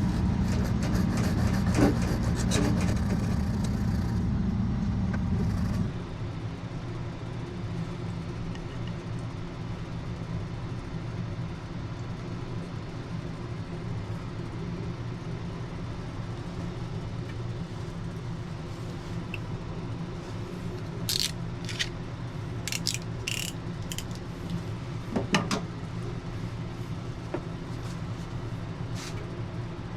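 Steady low mechanical hum; a louder part of it stops about six seconds in, leaving a quieter hum. Scattered small clicks and clatters, like handling small metal parts, come in the first few seconds and again in a cluster near the end.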